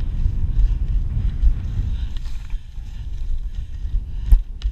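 Wind buffeting a moving action camera's microphone: an uneven low rumble, with two sharp clicks near the end.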